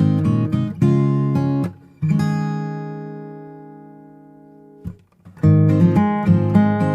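Background music on strummed guitar. About two seconds in, a chord is left to ring and slowly fade. After a brief break the strumming starts again about five and a half seconds in.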